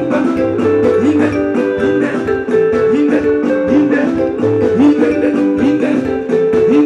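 Soukous band music: bright, interlocking electric guitar lines with short sliding notes over bass, driven by a fast, even hi-hat beat.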